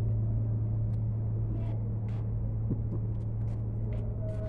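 A steady low hum with a low rumble beneath it, with a few faint soft clicks as fingers pick at a piece of fish on a plate.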